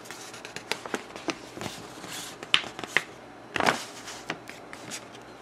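Paper instruction booklet being handled, its pages turned and smoothed: scattered light paper ticks and brief rustles, with a louder rustle a little past halfway.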